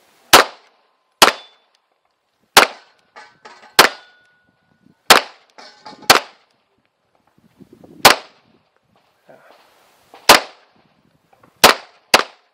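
Ten 9 mm pistol shots from a Tanfoglio Stock 2 Xtreme firing 115-grain Winchester factory loads, loud and sharp, spaced about one to two seconds apart, with the last two fired in quick succession near the end.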